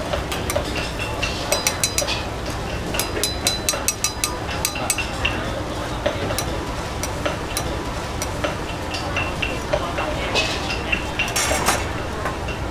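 Street-food cooking: a steady sizzle of frying with quick runs of sharp, ringing clinks of metal utensils against a metal pan or bowl.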